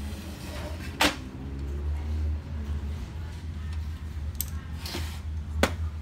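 Knocks and clicks of a stripped-down laser printer's metal frame and plastic parts being handled and set down on a tile floor. There is a sharp knock about a second in, a few lighter clicks and another sharp knock near the end, over a steady low hum.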